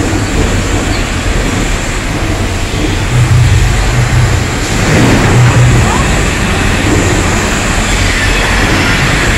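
Staged earthquake special effects: a loud, continuous rumbling and rushing noise, with deep low rumbles swelling about three seconds in and again about five seconds in, as gas fires flare in the set.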